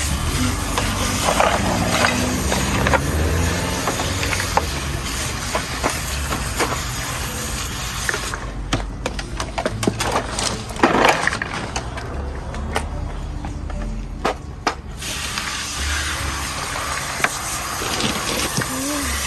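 Hands working potting soil and leaf mould: steady rustling and scraping, with scattered small clicks and knocks.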